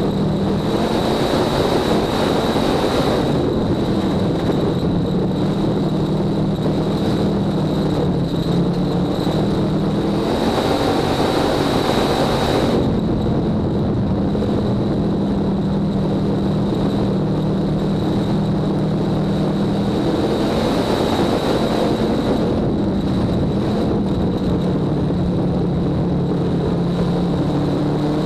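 Dirt-track race car's V8 engine heard from inside the cockpit, running at fairly steady, low revs as the car slows from racing speed. A thin steady whine runs over it, and there are two stretches of louder, rougher sound about ten and twenty seconds in.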